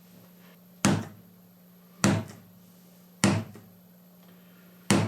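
Mallet striking a small punch through leather to make holes: four sharp knocks about a second apart.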